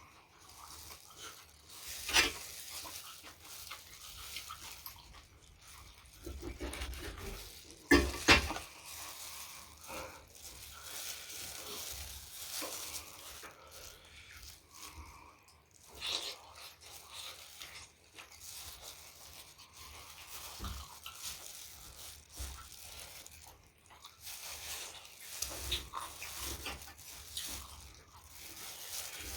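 Close-up eating sounds: wet chewing and crunching of food, with many small mouth clicks. Two sharp clicks stand out, about 2 seconds and 8 seconds in.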